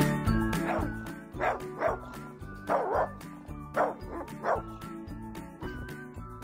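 A small dog yipping in about seven short, sharp yips, over steady background music. The yips stop about four and a half seconds in.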